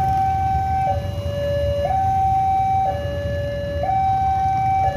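Railway level-crossing warning alarm sounding with the barrier down: two electronic tones, high then low, alternating about once a second. A low rumble of idling motorcycles lies underneath.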